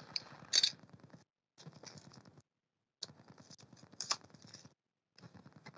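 Packaging of a trading-card box crinkling and rustling as it is handled and opened by hand. It comes in short stretches with brief pauses and a couple of sharp clicks, about half a second in and again about four seconds in.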